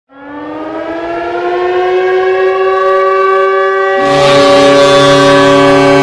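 CSKA Moscow's ice hockey goal horn blowing one long blast that swells in, sliding up slightly in pitch before holding steady. About four seconds in, a second, lower tone and a wash of noise join it.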